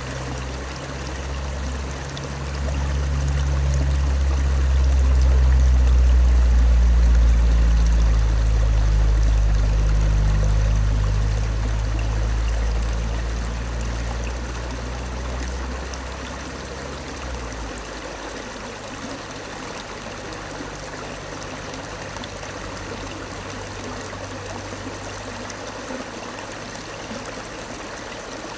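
Flowing stream water, a steady rushing and trickling. A deep low rumble swells over it in the first half, loudest about a fifth of the way in, and fades out a little past halfway.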